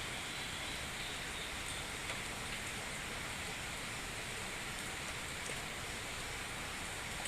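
Steady, even hiss of running water.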